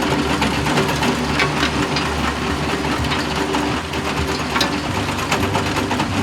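Excavator engine sound effect, running steadily with a fast rattling clatter.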